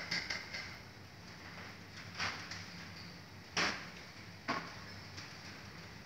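Lovebird in its wire cage making three short, sharp sounds about two, three and a half and four and a half seconds in, the middle one loudest, over a faint steady hum.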